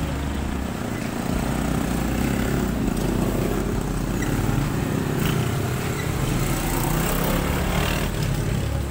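Street traffic: vehicle engines running close by, a steady drone throughout.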